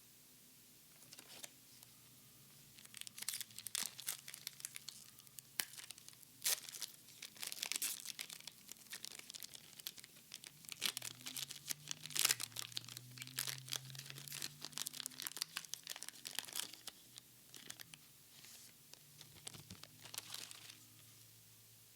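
Plastic-foil wrapper of a Pokémon card booster pack being torn open and crinkled in the hands, a run of irregular crackles and rips that eases off near the end.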